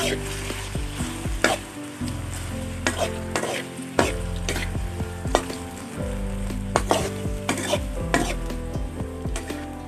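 Pork sizzling as it stir-fries in hot oil in a metal wok, with a metal spoon scraping and knocking against the pan again and again as the meat is turned. A steady low hum sits underneath.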